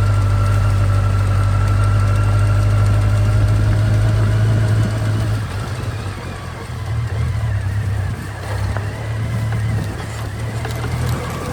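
Motorcycle engine running with a steady low hum; about five seconds in it gets quieter and more uneven.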